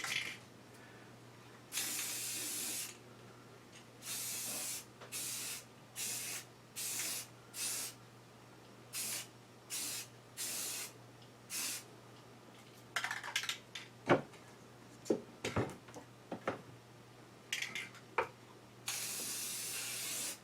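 Paint being sprayed onto a small part in short hissing bursts, about ten quick squirts, then some knocks and clicks as the part is handled, and one longer spray near the end.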